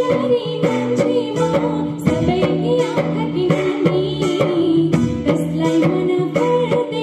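A woman singing a song into a microphone over amplified band music with a steady beat, played through stage speakers.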